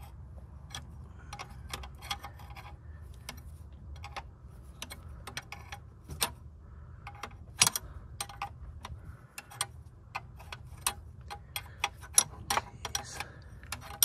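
Steel combination wrench clicking and clinking against the injection line nuts on a Mercedes 240D diesel's injectors as they are tightened after bleeding air from the fuel lines: irregular sharp metal ticks, a few loud clinks among them, over a low steady hum.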